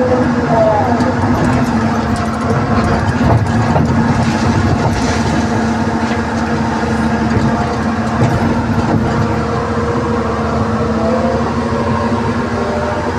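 Hydraulic excavator's diesel engine and hydraulics running steadily under working load as the bucket digs, a constant low hum heard from inside the operator's cab.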